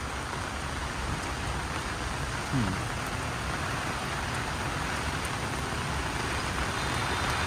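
Steady rain falling and pattering on the ground around the microphone, an even hiss.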